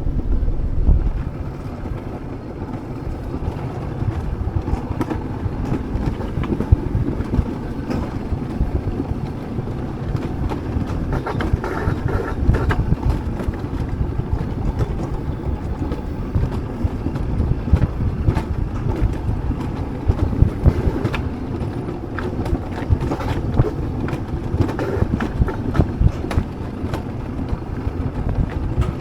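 Alpine coaster sled running along its metal rail track at speed: continuous rattling noise with many small clicks and knocks.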